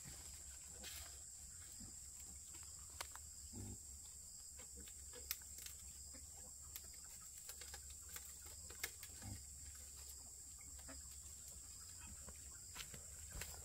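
Quiet farmyard background: a steady high hiss over a low hum, with scattered soft clicks and a few faint low animal sounds.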